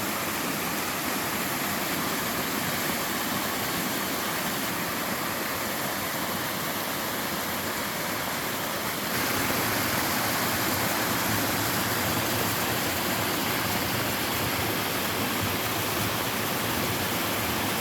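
Mountain-stream waterfall rushing steadily, a dense even roar of falling water. It abruptly gets louder about halfway through.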